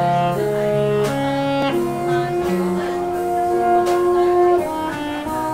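Saxophone playing a slow jazz ballad melody in long held notes, over a small band's accompaniment of low sustained notes and a few light cymbal strokes.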